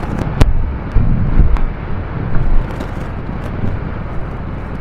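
Motorcycle on the move, with heavy wind rush on the microphone and a low rumble. A few sharp knocks come in the first two seconds.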